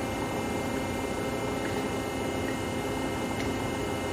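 Monarch Model 80 engine lathe running: a steady mechanical hum with several held tones from its drive and gearing, and a few faint ticks.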